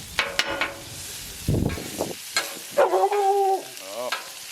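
Chopped hot dogs sizzling on a Blackstone flat-top griddle, with a metal spatula scraping and tapping against the steel several times. A short, steady high whine about three seconds in is the loudest sound.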